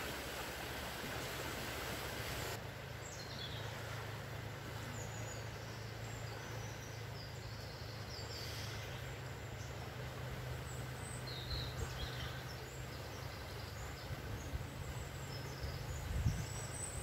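Steady rushing of a river in flood, swollen after heavy rain, its hiss dulling about two and a half seconds in. Small birds chirp briefly over it, and a few low bumps come near the end.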